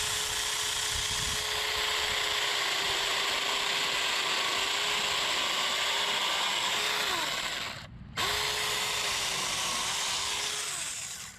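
Saker 20 V mini electric chainsaw running and cutting through a tree log, its motor pitch wavering and sagging under load. It stops about eight seconds in, starts again a moment later, and stops near the end.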